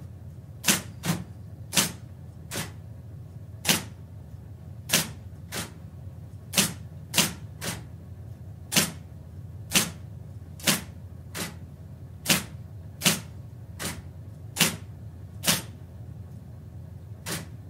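Electric office typewriter heard from a few metres away, typed slowly with one finger: single sharp key strikes at irregular intervals, some in quick pairs, over the machine's steady motor hum.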